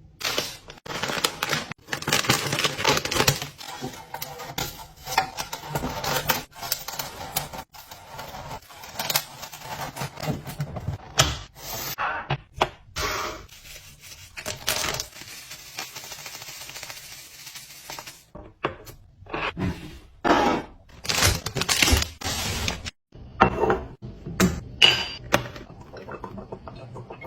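Clicks, knocks and light clatter of hard containers, lids and items being handled and set down, in short pieces broken by sudden cuts.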